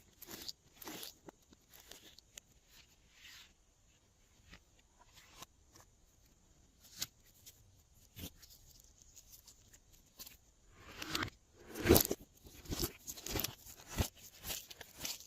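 Glossy slime being squished and kneaded by hand, giving irregular wet clicks and pops. The clicks thin out to a few faint ones in the middle, then come thick and loud again in the last few seconds, with the sharpest pop about twelve seconds in.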